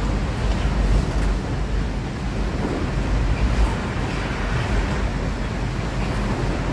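Freight train of wagons carrying truck semitrailers passing close below: a steady rumble of wheels on the rails.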